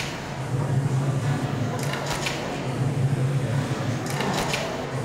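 Improvised electronic music made from sampled found sounds of a building. A steady low drone runs under clusters of sharp clicks and clatters, which come back about every two seconds.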